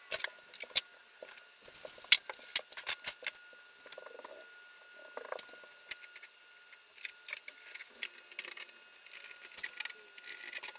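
Scattered clicks, knocks and light rattles of metal wire-shelving hardware being handled and fitted to the wall standards, loudest about two seconds in.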